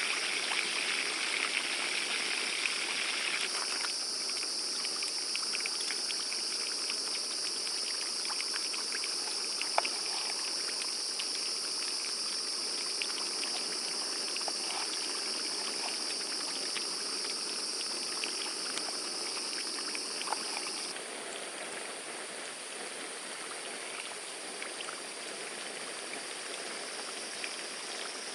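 Forest ambience: a steady rushing like flowing water under a high, steady chorus of insects. The chorus shifts about three seconds in and drops away about twenty seconds in.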